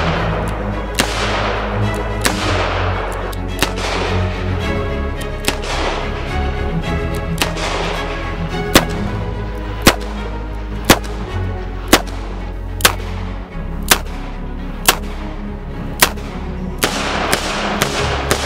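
Shots from a Smith & Wesson Model 10 .38 Special revolver, fired one at a time about once a second, over background music.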